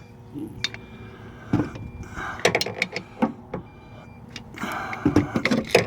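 Starter of a seized 2001 Kia Rio engine being tried with the key: clicks and clunks with two short bursts of straining, about two seconds in and again near the end, and the engine does not turn over. The owner suspects a broken piston or rod.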